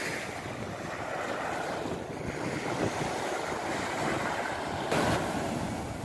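Sea surf: small waves breaking and washing up the shore in a steady rush, with a louder surge about five seconds in.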